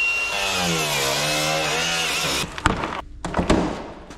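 A power tool's motor running, its pitch dipping and recovering as it works, stopping about two and a half seconds in. Then a few sharp knocks.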